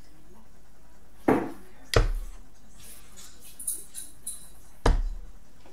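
Steel-tip darts thudding into a sisal bristle dartboard: three short, sharp hits, two close together a little over a second in and one near the end.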